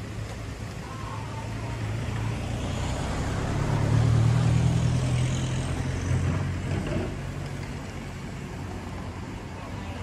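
A motor vehicle's engine running close by, growing louder to a peak about four seconds in and fading by about eight seconds as the vehicle drives past, over general street traffic noise.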